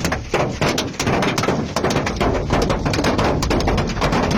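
Strong storm wind blowing hard, buffeting the microphone, with a constant rapid patter of small impacts.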